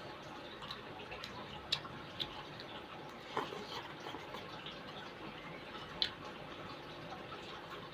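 Eating soto and crispy tofu: a few scattered sharp clicks and small knocks, the loudest about six seconds in, over a steady low hiss.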